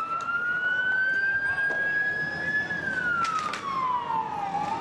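Fire engine siren in a slow wail: it rises over about three seconds, falls, and starts to rise again near the end. A few short clicks come about three seconds in.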